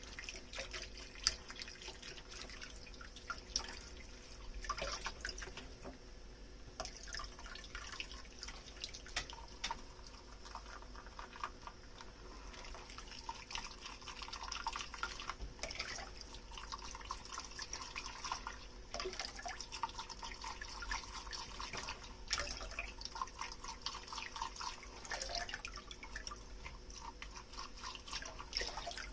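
Dishes being washed by hand at a kitchen sink: water trickling, dripping and splashing, with scattered light clicks and taps of dishes being handled.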